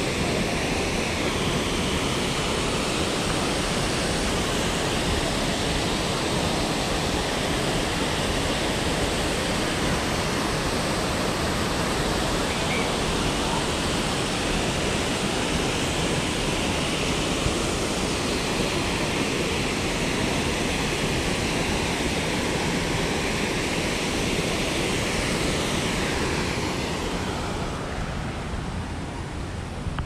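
Fossil Creek waterfall: a steady rush of falling water. It thins and drops a little in level near the end.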